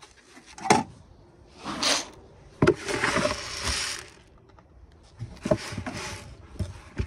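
Dressed barley seed rattling in a plastic bowl and poured out in a rush lasting over a second, with sharp plastic knocks as the bowl is lifted off and set back on a set of kitchen scales while weighing seed to calibrate a seed drill.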